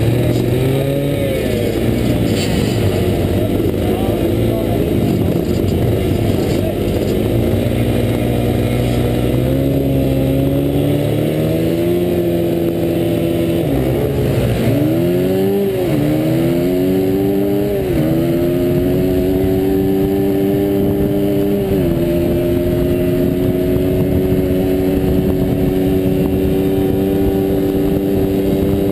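Dirt bike engine revving hard as the bike accelerates. Its pitch climbs and drops back in repeated steps as it shifts up through the gears, dips and climbs again about halfway, then holds steady at high revs near the end, heard from the rider's helmet camera.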